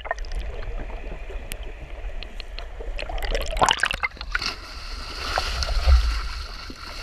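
Sea water sloshing and splashing against a camera at the waterline beside a boat hull, with a heavier splash about six seconds in.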